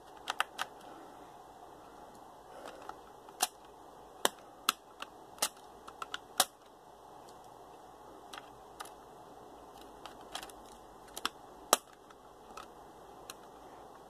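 Phillips screwdriver clicking in the screw of a laptop's memory-bay cover as it is turned loose: sharp, irregular clicks, some twenty of them spread over the stretch.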